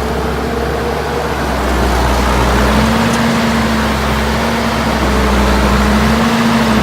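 2011 New Holland C190 tracked skid steer's diesel engine running steadily, its pitch and loudness rising slightly about two and a half seconds in as it works.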